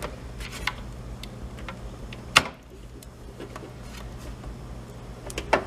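Hands handling a graphics card and its packaging: scattered light clicks and taps, with one sharp knock about two and a half seconds in and a couple more near the end, over a steady low hum.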